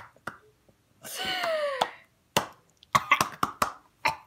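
Women laughing: one long vocal cry that falls in pitch about a second in, then a run of short, sharp clicks over the last two seconds.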